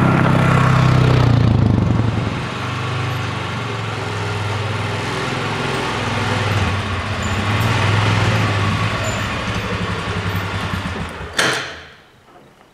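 2004 Polaris Ranger 6x6 utility vehicle's engine running as it drives past, loudest in the first two seconds, then running more steadily at low speed. Near the end there is a single sharp knock, after which the engine sound dies away.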